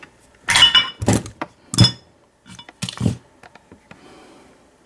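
Four or so sharp metallic clinks and knocks, some with a brief high ring, from a steel padlock and metal picking tools being handled.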